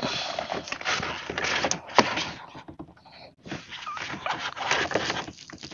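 Irregular rustling, scraping and light knocks from a caught school mackerel being handled and measured on a kayak, briefly quieter about halfway through.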